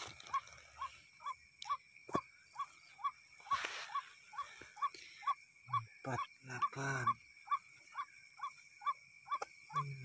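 Watercock call: a short note repeated steadily about twice a second, with a faint steady high insect-like tone behind it. Brief low voices and a few clicks come in around the middle.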